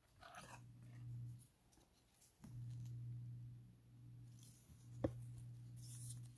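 Faint handling of a trading card and a clear rigid plastic holder as the card is slid into it, with one sharp click about five seconds in. A low hum comes and goes underneath.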